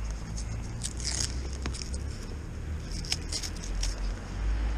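Rustling and light clicks of a coiled rubber charging cable with a red CEE plug being handled and uncoiled, in two short spells, about a second in and again about three seconds in, over a low steady rumble.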